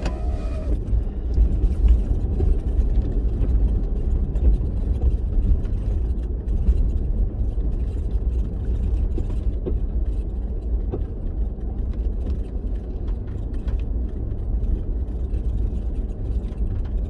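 4x4 vehicle driving, a steady low rumble of engine and road noise with faint small knocks and rattles.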